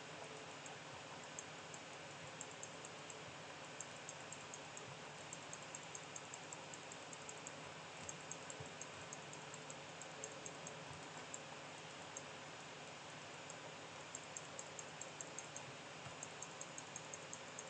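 Faint computer clicking: short runs of quick, evenly spaced clicks, coming and going several times over a low steady hiss.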